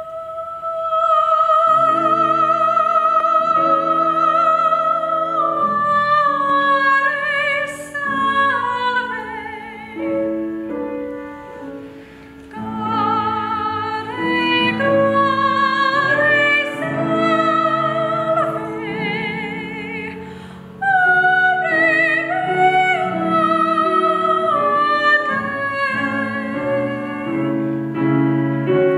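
A woman singing a classical art song in operatic style with strong vibrato, accompanied by a grand piano. She opens on a long held high note, then moves through a phrased melody over sustained piano chords.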